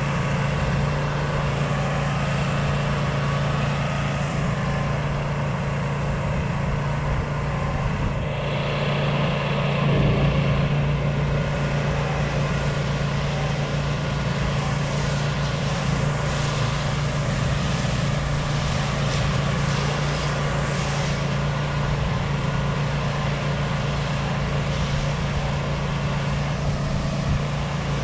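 Pressure washer running steadily, a constant engine hum under the hiss of the wand spraying a soap treatment onto a dome.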